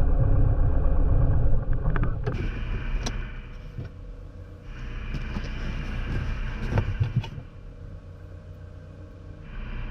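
Light piston aircraft engine running steadily, then dropping away sharply about a second and a half in. Scattered clicks and knocks and a brief hiss follow.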